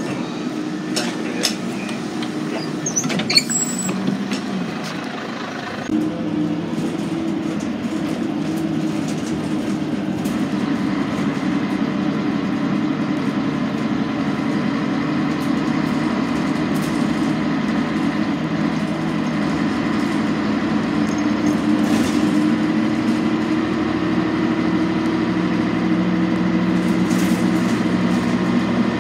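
Scania N113 city bus heard from inside the passenger cabin while under way: the engine runs with a steady drone, its note changes about six seconds in and it grows slowly louder after that. Sharp clicks and rattles sound in the first few seconds.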